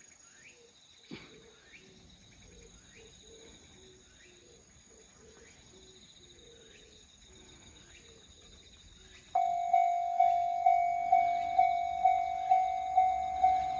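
Quiet outdoor background with a light knock about a second in. About nine seconds in, a Japanese railway level-crossing alarm starts ringing, a loud, steady pulsing tone at about two strikes a second, warning that a train is approaching.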